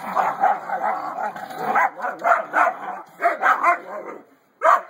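Dog barking: a fast, run-together string of barks, then about six separate barks, and one more bark near the end after a short pause.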